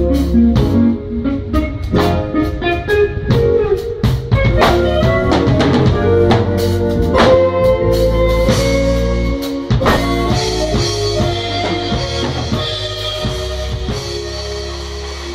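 Live band playing: drum kit with busy hits over keyboard chords, a keyboard bass line and guitar. About ten seconds in the drumming stops and a final held chord with ringing cymbals slowly fades out, ending the jam.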